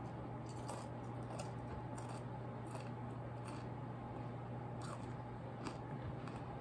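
Crunchy breakfast cereal being chewed: a series of short, crisp crunches at irregular intervals, over a steady low hum.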